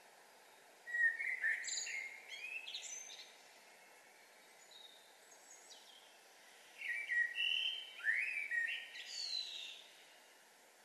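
A songbird singing two phrases of quick rising and falling notes, each about two to three seconds long and a few seconds apart, with a few faint notes in between. Under it runs a steady faint hiss of background noise.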